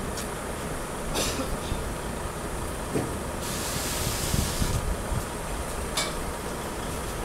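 Heavy low-loader truck rumbling, with a sharp hiss of compressed air for about a second and a half midway, typical of air brakes, and a few short knocks.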